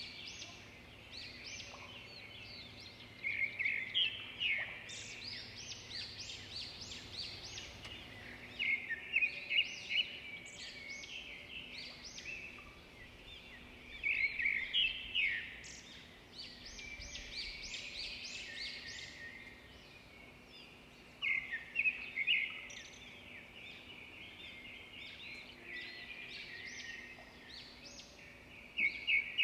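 Birds chirping and singing in chorus, with one louder bird repeating a quick run of chirping notes every six or seven seconds, five times in all. A faint steady hum lies underneath.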